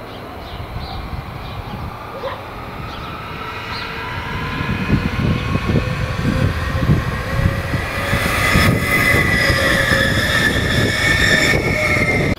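Stadler FLIRT electric multiple unit approaching and passing: the rumble of the wheels on the rails grows steadily louder, with a whine in several steady tones that is loudest as the train goes by near the end.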